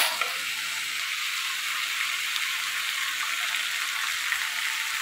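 Onions, coriander and curry leaves sizzling steadily in hot oil in a clay cooking pot as they sauté.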